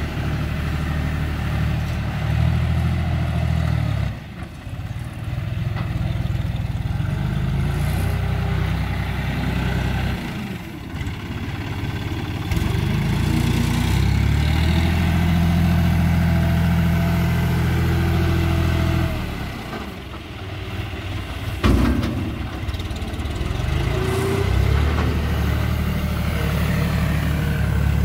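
John Deere tractor's diesel engine running under load as it works a front loader. Its speed rises and falls, dipping briefly three times. A single sharp knock comes about three-quarters of the way through.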